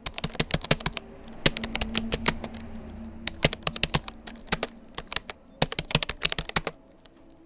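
Typing on a Rapoo computer keyboard: quick runs of key clicks with short pauses between words, stopping shortly before the end.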